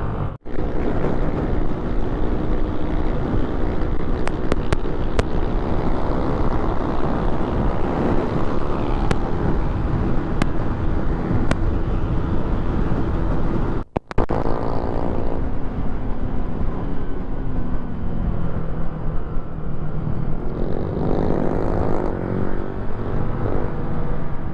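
Motorcycle engine running at road speed under heavy wind noise on the microphone, its note rising and falling with the throttle in the second half. The sound cuts out briefly twice, near the start and about halfway, where the footage is cut.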